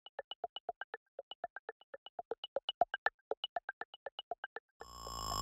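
Rapid electronic blips, about seven a second, each a short beep at a changing pitch: a text-typing sound effect. Near the end a steady electronic tone fades in and grows louder.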